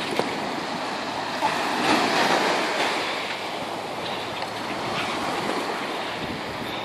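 Steady wash of sea surf on a sandy beach mixed with wind on the microphone, swelling briefly about two seconds in.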